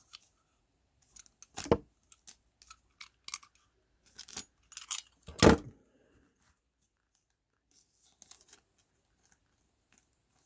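A thick trading card being worked into a plastic card sleeve: soft crinkles and clicks of the plastic, with two dull knocks about two and five and a half seconds in, then only faint scattered ticks.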